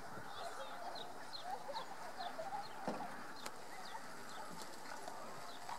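A horse cantering a show-jumping course, its hoofbeats on the arena surface, with one heavier thud about three seconds in.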